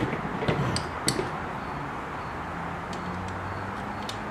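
A few light, sharp clicks and taps of small metal parts and a tool being handled on a sewing machine's lamp fixture, spread out over a steady low hum.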